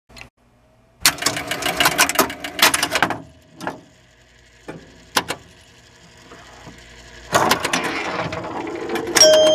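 Pinball machine mechanisms clattering: a quick run of sharp clicks and clacks, a few single clicks, then a longer rattling stretch. Ringing chime-like tones start near the end.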